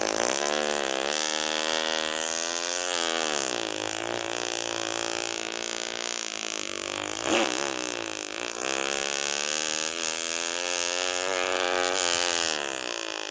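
Mouth sound effect: a long, unbroken, droning buzz made with the voice, its pitch slowly rising and falling, with a short click about seven seconds in.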